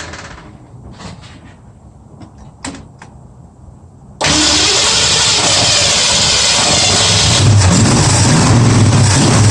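A 1965 Mustang's V8, on a freshly fitted Holley four-barrel carburetor, is started: a few clicks, then about four seconds in it cranks and fires, running loudly and building to a steady low throb.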